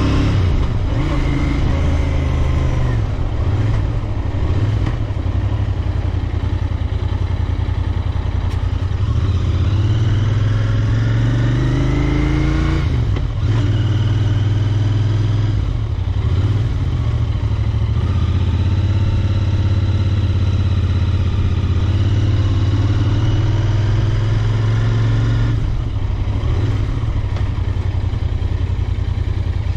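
Royal Enfield Interceptor 650's 648 cc parallel-twin engine under way. Its pitch climbs as the bike accelerates, drops sharply at a gear change about halfway through, then climbs again, with a few shorter dips between shifts.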